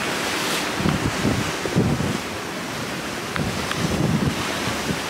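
Wind buffeting the microphone in irregular gusts over a steady hiss of rough open sea.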